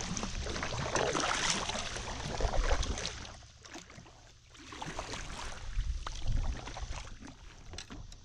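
Double-bladed kayak paddle dipping into river water, splashing and dripping in two stretches a second or so apart.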